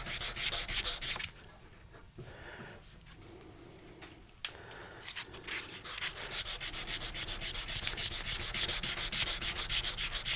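Hand sanding: a strip of sandpaper pulled rapidly back and forth across the faceted spacer and bolster of a knife, in fast, even strokes. The strokes stop for a few seconds about a second in, then start again. This is sanding to true up facets that are off.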